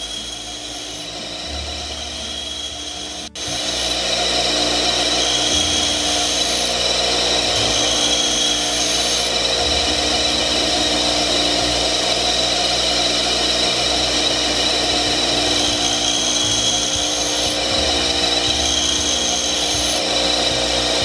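Bench grinder running steadily while a twist drill bit is held by hand against the spinning wheel, its point being ground to resharpen it. The sound drops out for an instant about three seconds in and is louder after.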